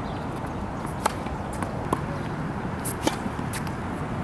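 Outdoor hard tennis court ambience: a steady rumble with three or four short, sharp pops of tennis balls spread through it.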